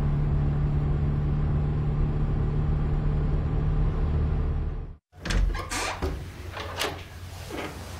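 Steady hum of a car driving, the engine and road noise heard inside the cabin; it cuts off suddenly about five seconds in. Then a low thump and a few scattered knocks and clicks from a door.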